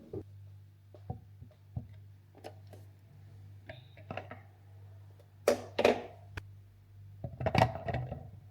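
Household objects being handled: scattered light clicks and knocks, with two louder clusters of knocking just past the middle and near the end, over a steady low hum.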